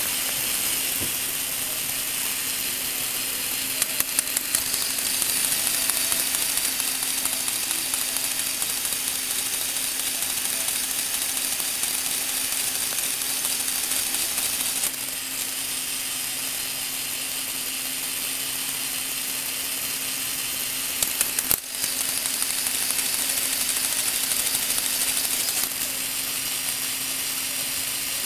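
Lego Technic electric motor driving a plastic gear train: a steady whirring hum of meshing gears. A quick run of clicks comes a few seconds in and again about two-thirds through, and the running sound steps louder or quieter several times as the gears are changed.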